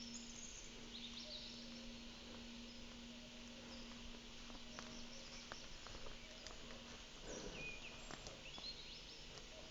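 Moose walking close behind a trail camera, its steps heard as scattered twig snaps and rustles, with a rough rush of heavy breath about seven and a half seconds in. Faint high chirps of small birds and a steady low hum lie underneath.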